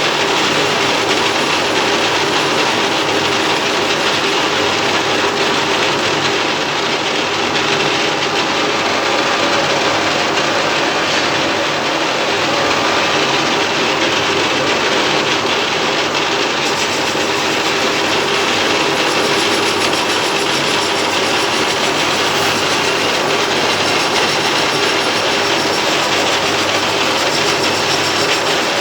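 Metal lathe running steadily while machining a pulley, a constant loud mechanical rattle and hum with no pauses.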